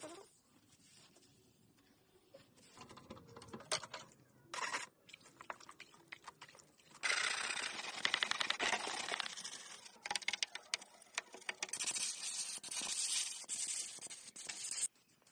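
A stiff brush scrubbing the slotted plastic back cover of a CRT television, a dense scratchy rasping with clicks, loudest in the middle. Near the end comes a steady hiss from an air blow gun, which cuts off just before the end.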